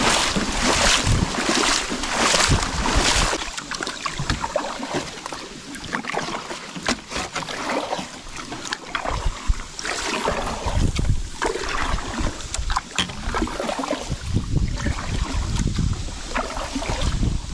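Kayak paddle strokes splashing in shallow river water, a quick run of them in the first few seconds, then more scattered ones. Wind buffets the microphone now and then with a low rumble.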